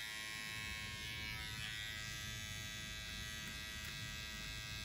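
Electric beard clipper buzzing steadily as it trims stray hairs along the jaw and neck.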